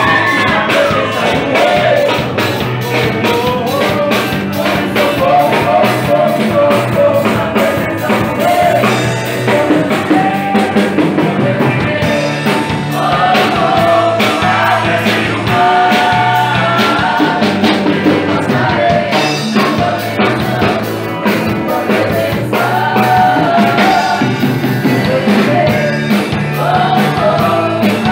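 A Christian worship song: voices singing over a rock band of electric guitar, bass guitar and drum kit, with a steady beat.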